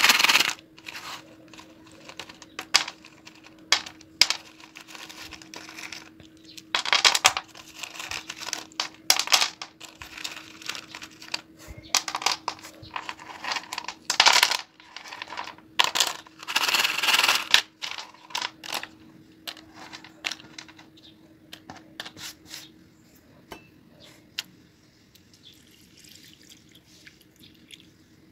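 Slate pencils clicking and clattering against each other and a plastic tub as they are handled: a run of sharp clicks, with louder bouts of clatter about 7, 14 and 17 seconds in.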